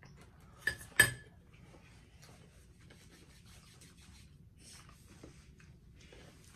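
Close-up eating sounds: two sharp clicks about a second in, then faint chewing and small mouth and rubbing noises.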